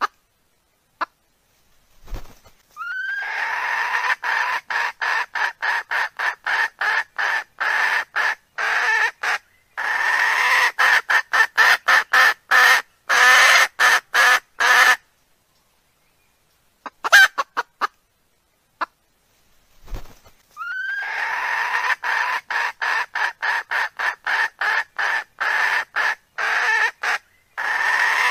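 Recorded rooster calls played as a wild-cock hunting lure: a short rising call, then long runs of rapid clucking pulses, about three or four a second, broken by short pauses. The same sequence repeats about eighteen seconds later as the recording loops.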